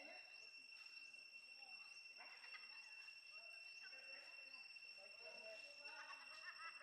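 Faint outdoor ambience: a steady high insect trill with scattered faint chirps and short calls, a little more busy about two seconds in and again near the end.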